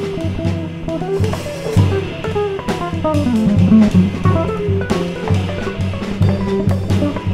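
A jazz trio playing live: a Telecaster-style electric guitar solos in quick single-note lines, with a run stepping down in pitch about halfway through, over bass and a drum kit with cymbals.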